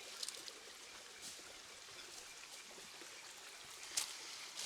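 River water running over rocks in a steady rush, with a few short sharp clicks, the loudest about four seconds in.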